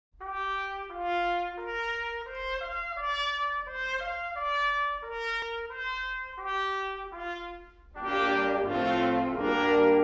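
Brass music: a single melody line of short held notes, joined about eight seconds in by louder, fuller brass chords.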